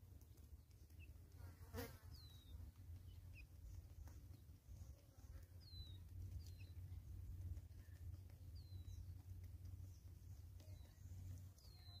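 Faint, steady low buzz of a fly or bee close by, with short, falling bird chirps every few seconds and one soft tap about two seconds in.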